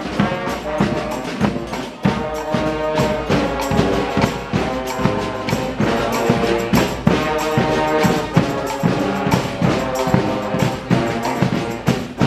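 Street brass band playing: several horns together over drums keeping a steady beat, with a short drop about two seconds in before the full band carries on.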